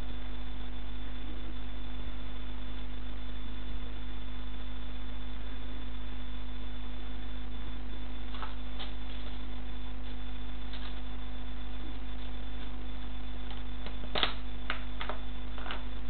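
Steady electrical hum throughout, with a few faint sharp cracks of a toy car's plastic breaking under a platform boot, a quick cluster of them near the end.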